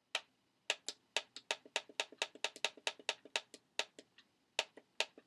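Rapid plastic clicks from the buttons of a My Little Pony alarm clock being pressed over and over to set the alarm, at roughly four clicks a second, unevenly spaced and some louder than others.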